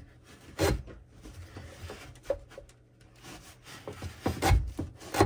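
Adjustable oil filter wrench being turned on a tight oil filter to loosen it: metal scraping and rubbing with scattered sharp clicks and knocks, the heaviest knock about four and a half seconds in.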